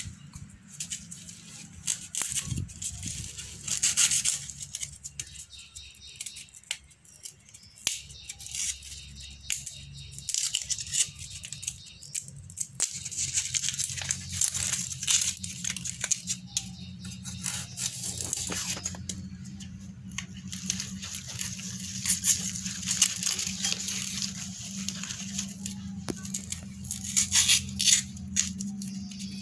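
Red onions being peeled with a small knife, their dry papery skins crackling and tearing in irregular bursts, over a steady low hum.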